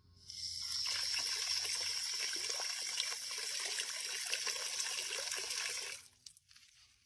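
Garden hose spray nozzle spraying water into a bucket of water: a steady hiss and splashing that starts just after the beginning and cuts off about six seconds in.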